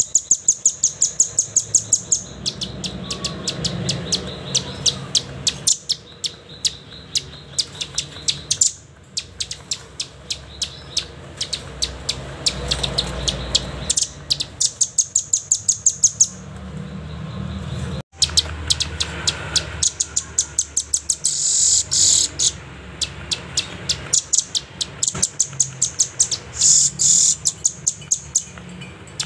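Velvet-fronted nuthatch calling: rapid runs of sharp, high chipping notes, several a second, broken by short pauses.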